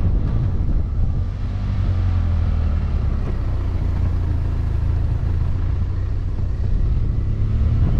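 BMW F800GT's parallel-twin engine running with a steady low note, under wind rumble on the bike-mounted microphone.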